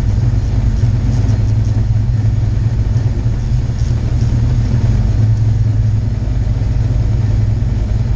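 Fox-body Mustang's 5.0 V8 engine idling steadily. The battery's positive terminal is disconnected, and the engine keeps running on the alternator alone.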